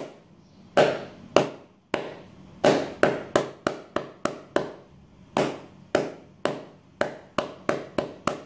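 Two hands clapping the paó, the rhythmic salute of clapped hands in Afro-Brazilian ritual that closes an offering to Exu and Pombagira. Sharp claps come in groups: three slow claps, then a quicker run of seven, then after a short pause another quick run. Each clap is followed by a short echo.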